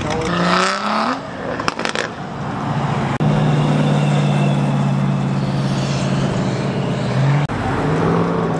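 Engines of lifted trucks driving past on a street. One revs up in the first second, then come a couple of sharp cracks, then a steady engine drone for about four seconds.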